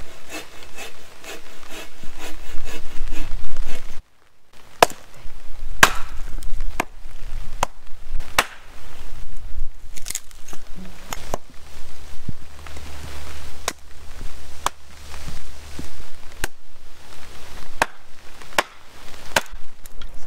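Wood being chopped: sharp single strikes about once a second. A faster run of quick clicks comes first and cuts off suddenly about four seconds in.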